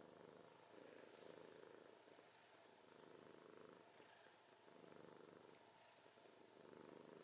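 A Scottish Fold cat snoring faintly in its sleep, a slow rhythm of soft rasping breaths, one every second or two.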